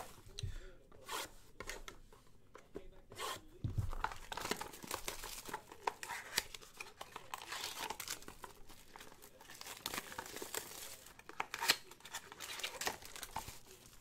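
Topps Triple Threads trading-card boxes being torn open and their foil-wrapped packs pulled out and handled, with irregular cardboard tearing, rustling and foil crinkling. There are a couple of low thumps in the first few seconds as boxes are set down on the table mat.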